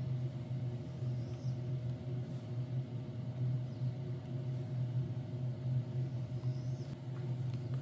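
Steady low machine hum with a faint higher tone above it, unchanging throughout.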